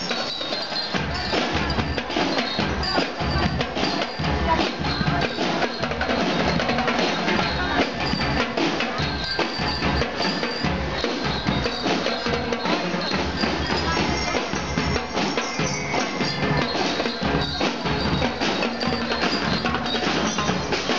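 School drum and lyre band playing on the march: snare and bass drums beating a steady, dense rhythm, with the ringing metal bars of bell lyres carrying the tune over them.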